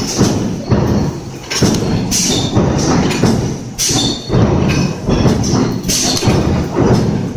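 CNC power press punching sheet metal with automatic feeding: a string of sharp, heavy strikes at uneven intervals, about seven in all, with a clattering mechanical rumble between them.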